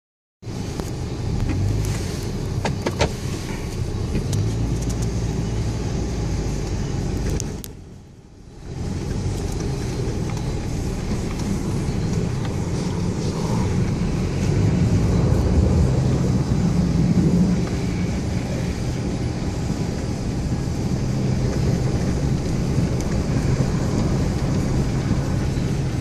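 Steady engine and road rumble heard from inside a vehicle's cab as it drives along a snow-covered road. The sound drops away briefly about eight seconds in, then resumes.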